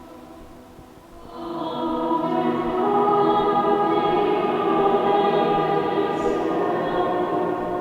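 A choir singing sustained chords, soft at first and then swelling in louder about a second in.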